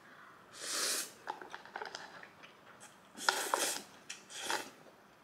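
A person eating instant noodles with chopsticks: several short, hissy slurps with small wet mouth clicks and chewing between them.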